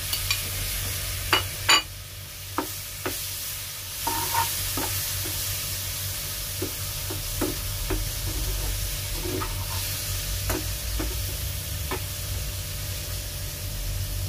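Chopped tomatoes frying in oil with a spiced masala in a pan, sizzling steadily, while a steel slotted spatula stirs and scrapes through them. The spatula taps and clicks against the pan now and then, loudest about two seconds in.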